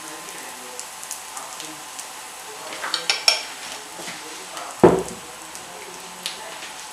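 Butter sizzling and crackling in a frying pan around freshly poured pancake batter. A few light kitchenware clinks come about three seconds in, and a single louder knock just before five seconds.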